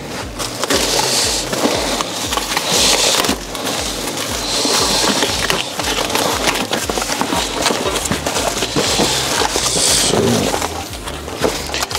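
Plastic wrapping and cardboard packaging rustling and crinkling in several bursts as grill parts are unpacked from their box, over background music with a steady low beat.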